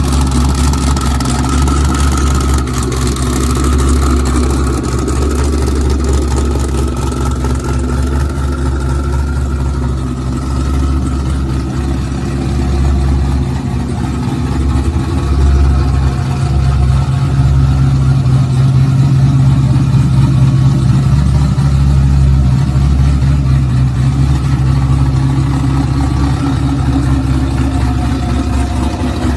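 Sports car engine idling through its exhaust, a loud, steady low note with small swells and no big revs.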